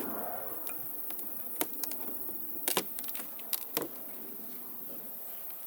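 Sharp clicks and knocks, about eight of them in the first four seconds, from wooden hive boxes and frames being handled during a hive inspection, over a low steady hum of honeybees.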